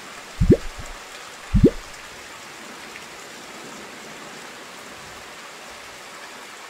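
Steady heavy rain, with two loud plops that each rise in pitch, about half a second and a second and a half in.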